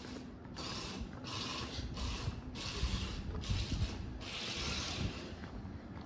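A series of about six rasping, scraping strokes in a steady rhythm, each under a second long with brief pauses between, the last one longest.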